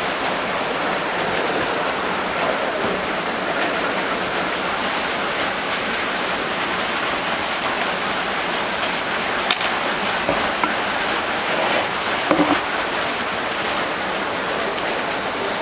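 Heavy rain drumming steadily on a tin roof.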